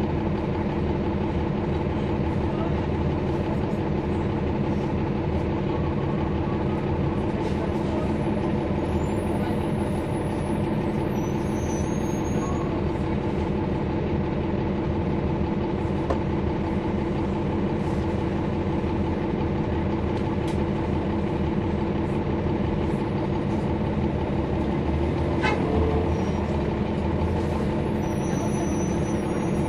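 A Cummins ISL9 inline-six diesel engine of a transit bus running steadily, heard from inside the bus, its pitch holding level with no revving or gear changes.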